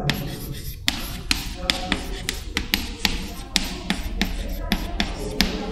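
Chalk writing on a blackboard: a quick run of sharp taps, about three or four a second, as each letter is struck and drawn.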